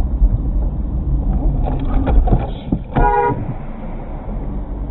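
A car horn sounds one short blast about three seconds in, over a steady low rumble of engine and road noise from the dashcam car.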